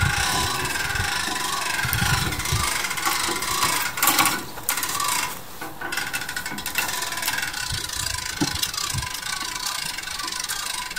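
Trailer winch pulling a car by its cable: a steady mechanical whirring with rapid, fine clicking, dipping briefly about halfway through.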